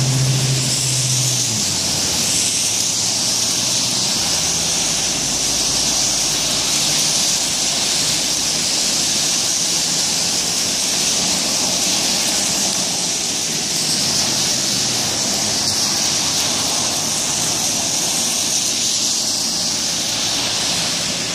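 Steady rain falling, an even hiss. A low hum in the first second and a half fades away.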